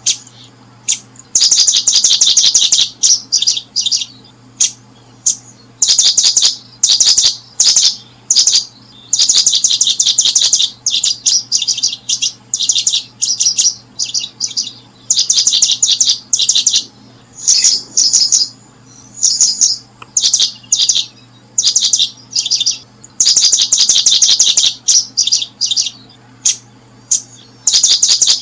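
Small bird chirping in quick, high trilled bursts, each half a second to a second and a half long, repeated over and over with short gaps.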